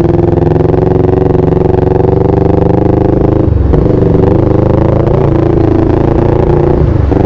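CFMoto 400NK motorcycle's parallel-twin engine pulling away and accelerating. Its note breaks and drops twice, about three and a half and seven seconds in, then climbs again, as at gear changes.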